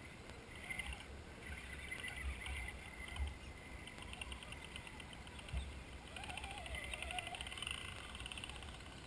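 Small electric motors and gears of RC rock crawlers whining, rising and falling in pitch with the throttle as they crawl up over logs. Two short thumps, about three and five and a half seconds in, over a steady low rumble.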